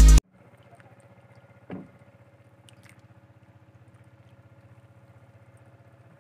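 Background electronic music cuts off abruptly just after the start. What remains is the faint, steady hum of a distant motorboat engine, with one short knock about two seconds in.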